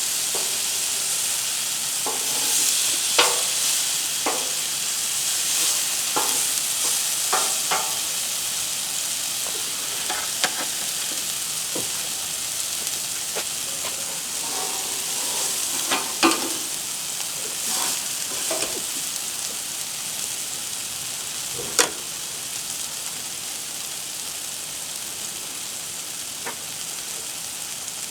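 Thinly sliced Roma tomatoes sizzling on a hot Blackstone flat-top griddle, a steady hiss with scattered short clicks and scrapes, the sharpest one about 22 seconds in.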